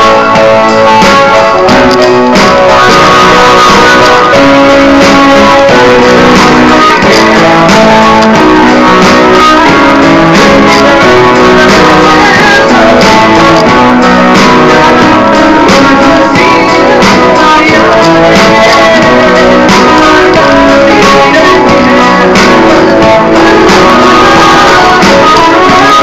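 Electric guitar playing a continuous stream of notes, recorded so loud that it sits at full level throughout.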